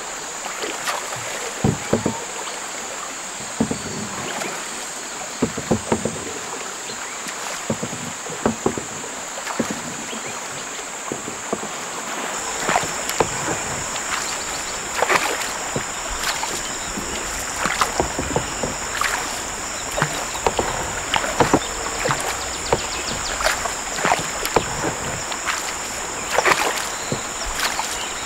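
Wooden dugout canoe under way on a river: irregular knocks of pole and paddle against the hull and splashes of water, over a steady high-pitched drone. About twelve seconds in, a low rush of water along the moving hull joins in.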